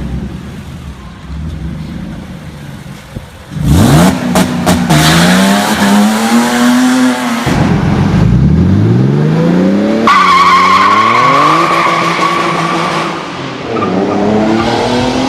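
BMW E36 325i straight-six engine held on launch control, then launching hard with a few sharp cracks and accelerating through the gears, rising in pitch with two upshifts a few seconds apart.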